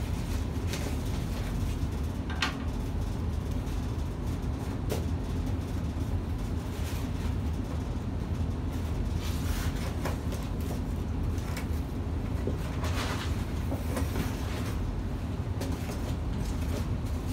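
Packing tape being slit and cardboard flaps being scraped and torn open on a long shipping box, in short scrapes and rips every few seconds, over a steady deep hum in the room.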